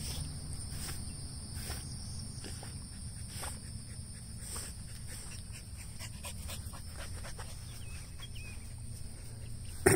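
A husky panting, with a steady high insect drone behind it. A single sharp knock comes just before the end.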